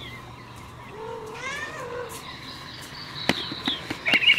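Domestic cat meowing once, a drawn-out call about a second in. It is followed by a few sharp clicks and knocks, and a burst of high chirps begins right at the end.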